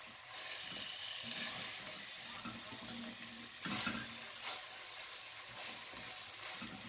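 Boniato (Cuban sweet potato) pieces sizzling in a pot as their sugar glaze caramelizes, with a silicone spatula scraping and turning them now and then.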